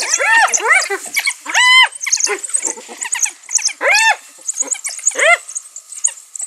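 Spotted hyenas and African wild dogs calling while the dogs harass the hyenas at a carcass: repeated squealing cries that rise and fall in pitch, one held longer about two seconds in, over a steady scatter of high, thin chirps.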